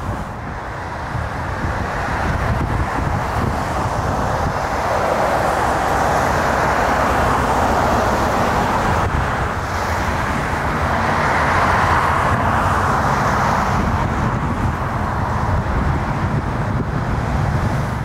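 Road traffic passing: a steady rushing of tyres that swells twice, about a third of the way in and again past the middle, over a low rumble of wind buffeting the microphone.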